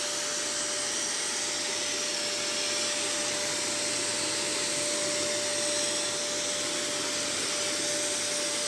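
Electric cold fogger spraying insecticide mist: its blower runs steadily with a constant whine, the sound of fogging furniture against bedbugs.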